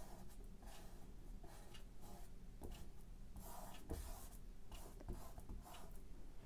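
Paintbrush stroking paint onto a canvas: a series of short, faint, scratchy strokes, roughly one a second.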